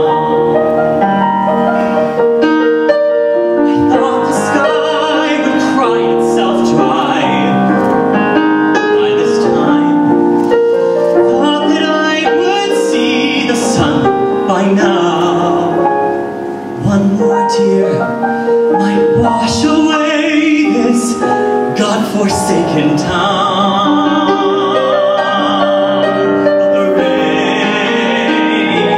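A man singing a slow musical-theatre ballad with live piano accompaniment, ending on a long note sung with vibrato near the end.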